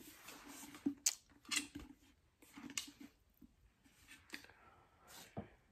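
A small rhinestone-panelled trash can being handled and turned in the hands, giving scattered rustles and a few light clicks and knocks.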